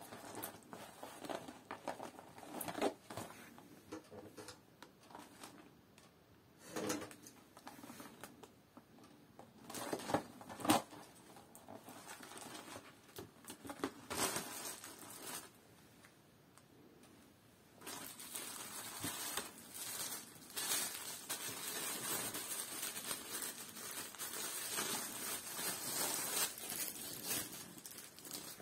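Unboxing noises: a cardboard knife box handled and opened, with scattered taps, scrapes and rustles. About two-thirds of the way in comes a steady crinkling rustle of the plastic wrapping around the Bowie knife.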